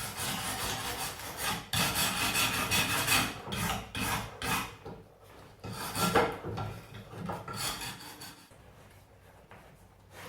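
Irregular rasping scrape strokes of a hand tool working stripper-softened paint off a metal rim-lock part. The strokes come in bunches and stop about two-thirds of the way through.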